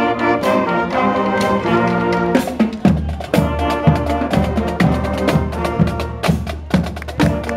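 Band music: held brass chords, then a steady drum beat with sharp strikes from about two and a half seconds in.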